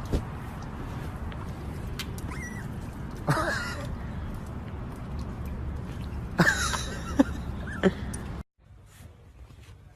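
A small young animal squeaking: three short cries that rise then fall in pitch, over a steady low background noise with a few clicks. It cuts off about eight and a half seconds in, leaving only faint noise.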